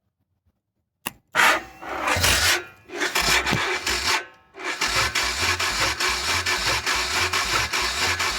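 A click about a second in, then two short bursts of starter cranking and, from about four and a half seconds, a steady cranking rhythm of about three pulses a second: a Yamaha 1700 Warrior's starter motor turning the V-twin over without it firing.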